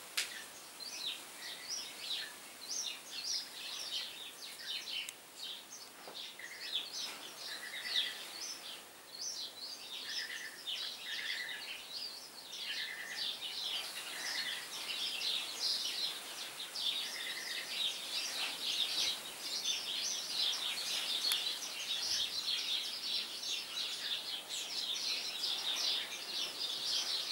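Small birds chirping and twittering in a continuous busy chorus of quick high notes, with a few short lower whistled notes now and then in the first half.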